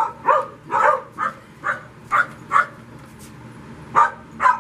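Puppy barking in short, high barks, about six in quick succession over the first few seconds, then two more near the end.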